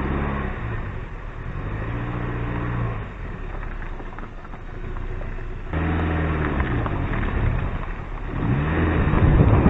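Mini Cooper R52 convertible driving on a mountain road, heard from outside by the front wheel. The engine note rises and falls with several accelerations and lift-offs over tyre and road noise, and a louder rush builds near the end as it speeds up again.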